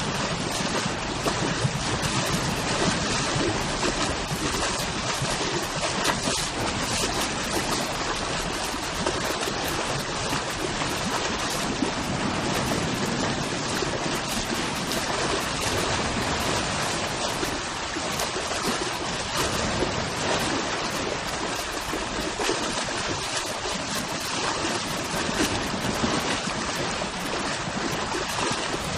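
Sea waves washing rapidly onto a shore, a continuous dense rush of surf and churning water with small swells in level.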